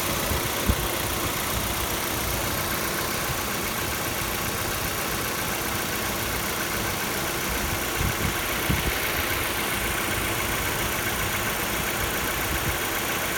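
Kia Soul (second generation) 1.6-litre engine idling steadily while still cold, the cold-engine knock being the fault on show. A few brief low thumps: one about a second in, a few more around eight to nine seconds in.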